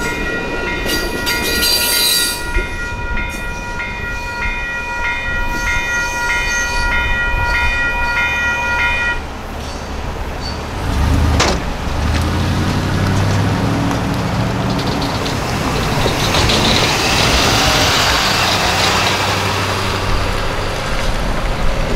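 Electronic grade-crossing bell (WCH Type 4) dinging about twice a second while the last passenger cars rumble past on the rails; the bell cuts off about nine seconds in. A single clunk follows, then road-vehicle engines running and pulling away.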